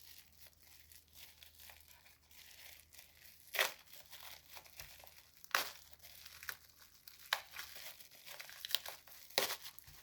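Packaging being unwrapped by hand: intermittent crinkling and rustling with several louder, sharp crackles spread through.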